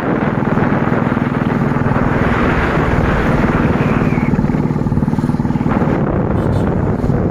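Royal Enfield Classic's single-cylinder engine running steadily as the motorcycle cruises along the road.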